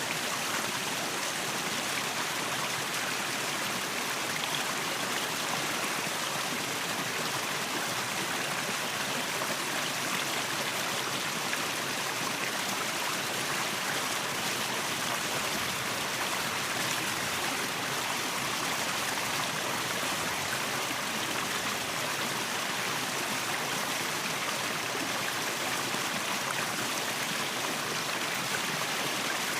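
Waterfall: water falling and splashing in a steady, unchanging rush.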